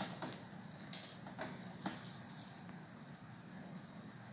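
Green chillies sizzling in oil in a coated frying pan, with a spatula scraping and knocking against the pan a few times as they are stirred; the sharpest knock comes about a second in.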